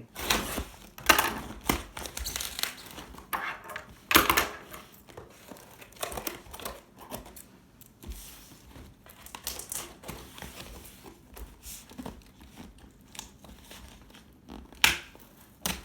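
A shipping box being opened by hand: packing material crinkling and rustling, with several sharp tearing rips, the loudest about a second in, around four seconds in and near the end.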